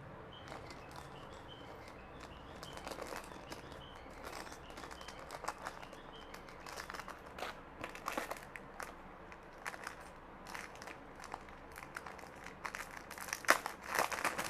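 Plastic packaging crinkling and rustling in irregular bursts of small crackles and clicks as pieces are handled, loudest near the end.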